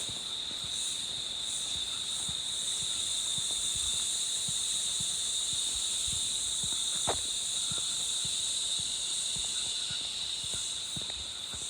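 Steady high-pitched chorus of insects. A single sharp click about seven seconds in is the loudest moment, over faint, irregular low knocks.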